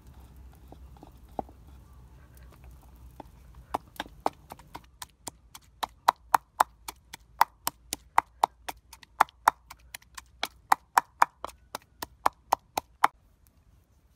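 Wooden pestle pounding chilies and shallots in a clay mortar: a steady run of sharp knocks, about three or four a second, starting about four seconds in and stopping near the end.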